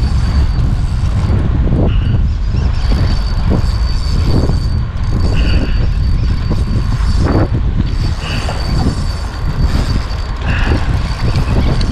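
Wind buffeting the microphone on an open boat: a loud, steady low rumble. Four brief higher-pitched sounds stand out over it.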